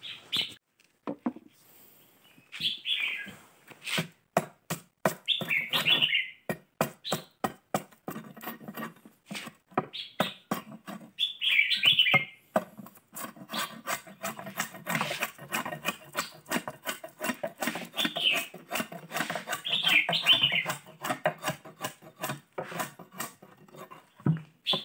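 A hooked machete chopping at the hard outer rind of a hollowed fishtail palm log, in many quick strokes, several a second. Birds chirp now and then over the chopping.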